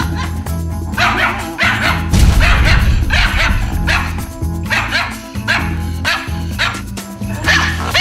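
Small white dog barking loudly and repeatedly in a quick string of sharp, high barks: reactive barking set off by household noise, over background music with a steady beat.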